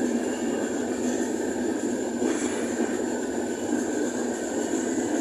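Indian Railways train running, a steady rumble of wheels on the track with a faint, steady high whine over it.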